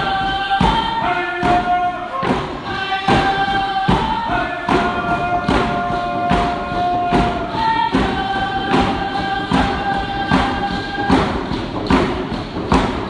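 Group singing a Native dance song in unison with held notes, over a steady hand-drum beat of a little more than one stroke a second.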